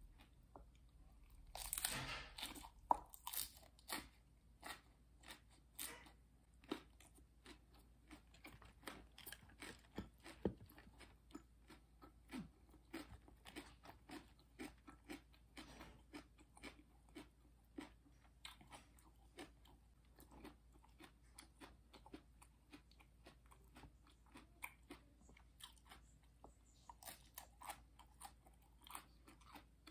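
A person biting into and chewing raw lettuce leaves close to the microphone. There is a loud crunchy bite about two seconds in, then steady crisp chewing.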